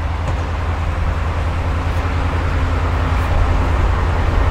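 Steady low rumble of an idling vehicle engine, with a faint hum and a hiss over it.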